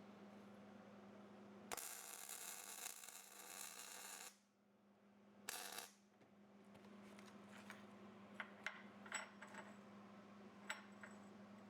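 Faint workshop sounds over a low steady hum: a hiss lasting about two and a half seconds, a second short hiss, then a few light metallic clinks of small parts.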